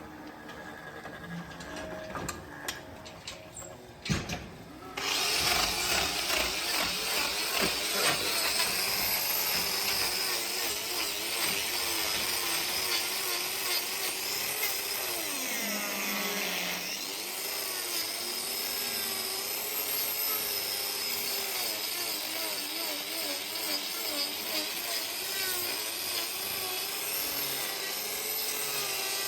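Chainsaw running and cutting wood, its pitch wavering and briefly dropping under load partway through. It starts suddenly about five seconds in, after a few knocks.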